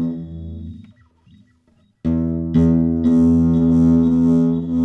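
Nylon-string classical guitar played through a HyVibe System-1 echo effect, its body driven by the HyVibe actuators. A chord rings out and fades in the first second, then after a short gap a chord is strummed about two seconds in and struck again half a second later, ringing on. On this guitar the player finds that the echo muddies the sound.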